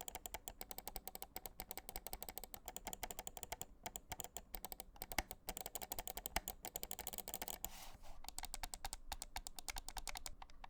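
Vaxee XE Wireless gaming mouse buttons clicked rapidly over and over, many sharp clicks a second, with a short break in the pattern about eight seconds in. This is most likely the first copy, whose buttons have a lot of pre-travel and rattle noisily.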